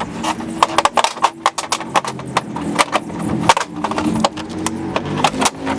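Rapid, irregular clicking and knocking from hand tools working the bumper fasteners of a car, several clicks a second.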